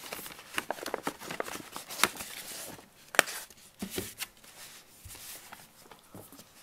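Paper bag and cardboard watch box being handled: rustling with irregular clicks and taps, two sharper knocks about two and three seconds in.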